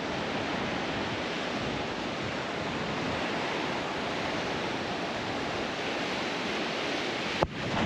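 Surf breaking and washing up a sand beach, a steady rushing wash. A single sharp click comes near the end.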